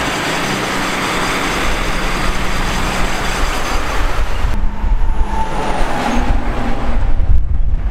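Moving-car road and wind noise while pacing a Nissan Skyline R33 on the road. About halfway through it cuts to a deeper, uneven low rumble with wind on the microphone as the Skyline drives up.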